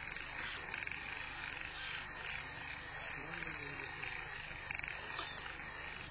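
Steady outdoor background noise with faint animal calls and no loud events.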